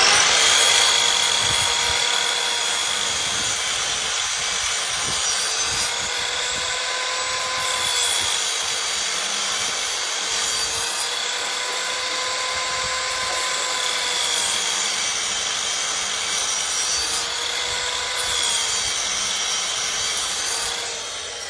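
Electric chop saw running and cutting through wood, its motor pitch sagging and recovering several times as the blade takes the load. It stops near the end.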